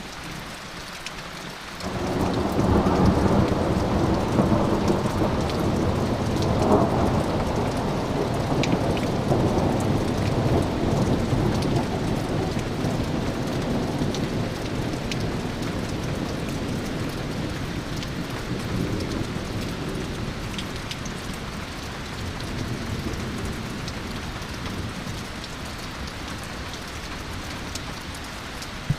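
Thunderstorm: steady rain with drops ticking, then about two seconds in a long roll of thunder breaks in suddenly. It is loudest over the next five seconds, with a sharper peak near seven seconds, and then slowly rumbles away under the rain.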